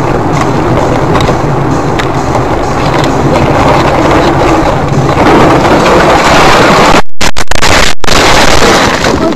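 Loud road and tyre noise of a moving vehicle, growing louder about five seconds in, broken by short silent gaps about seven and eight seconds in.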